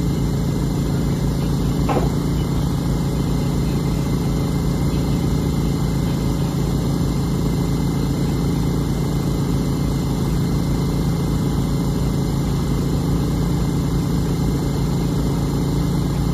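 An engine idling steadily, a low even rumble that does not change; a short click sounds about two seconds in.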